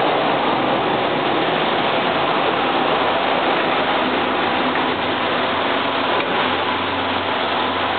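Fina 320Q wide-format inkjet printer running while printing: a steady, even rushing noise with a faint low hum under it.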